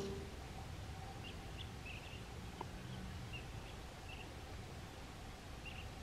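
Faint outdoor ambience: a low steady hiss with scattered short, high chirps from small birds.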